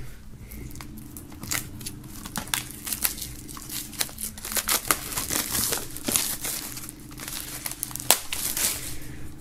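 Plastic shrink-wrap film crinkling and tearing as it is peeled off a CD jewel case, with many small irregular crackles.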